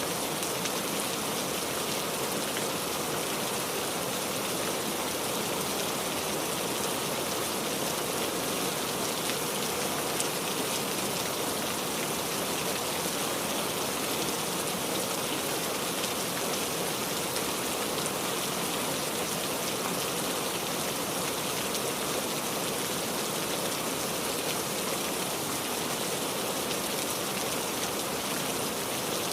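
Steady rainfall, raindrops pattering on a surface in a constant, even hiss.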